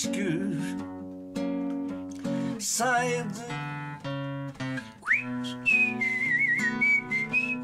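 An acoustic guitar strums sustained chords, with a man's voice singing briefly. From about five seconds in, a whistled melody enters: a quick upward swoop, then a wavering high tune over the guitar.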